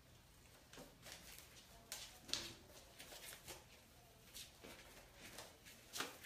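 Near silence with faint, scattered light clicks and scuffles at uneven intervals, the sharpest tick about two and a half seconds in.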